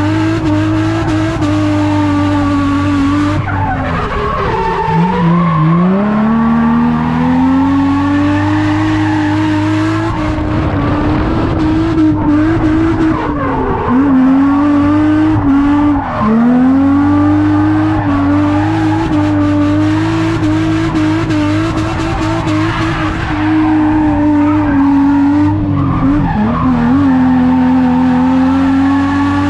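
Drift car's engine held at high revs through a long slide, the revs dropping and climbing back about four times, with tyres squealing.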